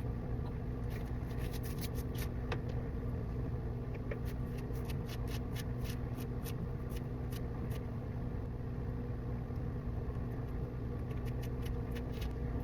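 A steady low electrical or mechanical hum from a room appliance, with many faint, light clicks and rustles of close hand work scattered over it.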